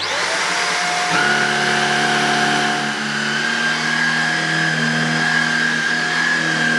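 Shark Rotator NV340 bagless upright vacuum cleaner switched on, its motor spinning up over about a second to a steady high whine with a rushing airflow hiss, then running steadily as it is pushed over carpet.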